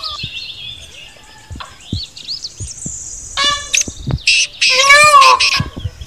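Small birds chirping and whistling with quick gliding notes. About halfway through and again near the end, two loud, drawn-out calls, each a single rising-then-falling note, sound over them.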